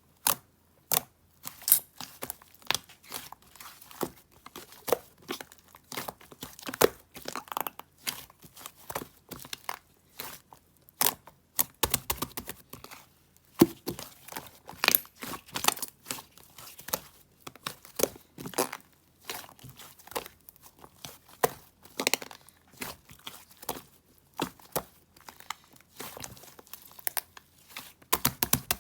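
Thin material being crinkled and torn: a dense, irregular run of short, sharp crackles and rips.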